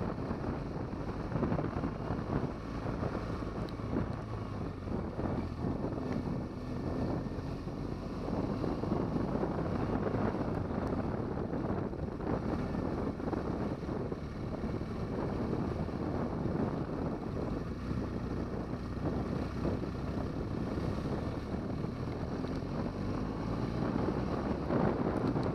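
BMW R1200GS boxer-twin engine running as the motorcycle is ridden, mixed with wind buffeting the microphone.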